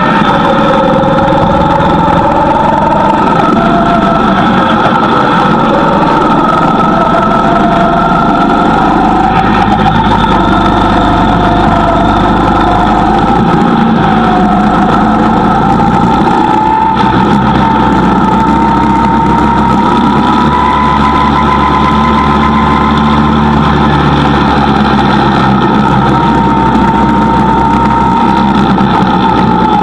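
Go-kart engine running loud and steady, its pitch rising and falling slowly as the kart speeds up and slows.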